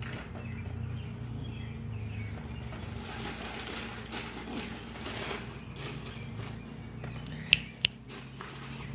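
Parchment paper crinkling and rustling as a rack of spare ribs is pressed down into a cast-iron Dutch oven lined with it. Two sharp clicks come near the end.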